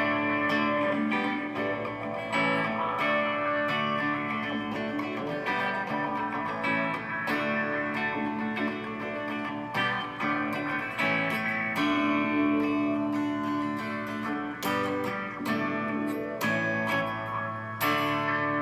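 Instrumental intro of a song played on a Stratocaster-style electric guitar through a small amplifier.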